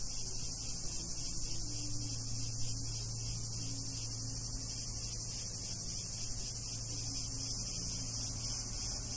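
Steady high-pitched chorus of cicadas in summer heat, unbroken throughout, over a low steady hum with a faint tone that shifts in pitch now and then.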